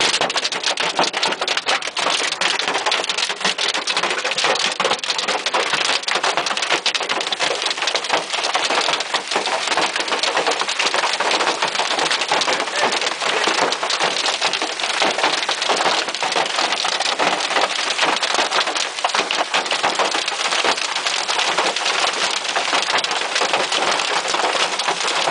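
Half-dollar-size hail falling with heavy rain: a dense, steady clatter of hard hailstone impacts over a continuous rush of rain.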